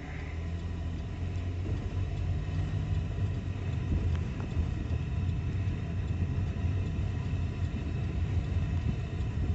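A car's engine running with a steady low hum that grows a little louder about a second in.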